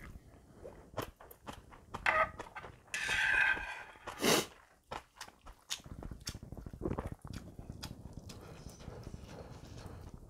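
Close-miked eating of instant ramen: wet chewing and smacking with small clicks, and a loud slurp about three to four and a half seconds in.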